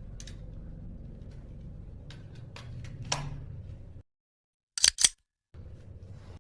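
Sharp mechanical clicks over a low hum, with a louder click about three seconds in. The hum drops out suddenly, and two loud, sharp clicks come in quick succession about five seconds in.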